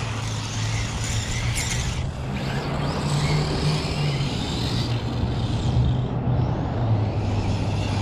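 Small electric radio-controlled cars driving across asphalt, their motors whining up and down in pitch over tyre noise, above a steady low hum.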